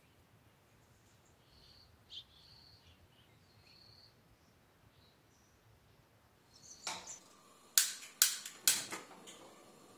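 Faint light ticks of a spoon stirring pancake batter in a glass bowl. Near the end come a snap and then three sharp clicks about half a second apart, as a hand-held gas lighter is sparked at a stove burner.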